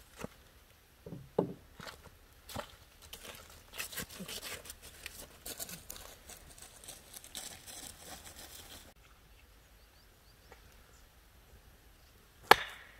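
Scattered light knocks, rustling and steps, then one sharp chop into wood near the end.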